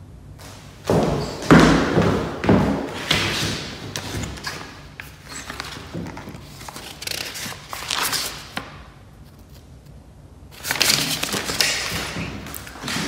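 Irregular thuds and rubbing noise from a phone being handled close to its microphone, with footsteps on a hardwood floor.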